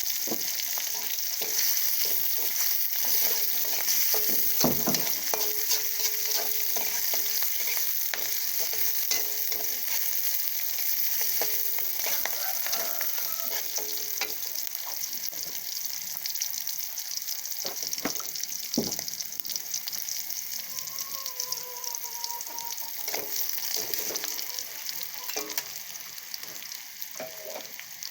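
Tempeh sizzling in hot oil in a frying pan as it is stirred, with the spatula clicking against the pan now and then. The sizzle eases a little near the end.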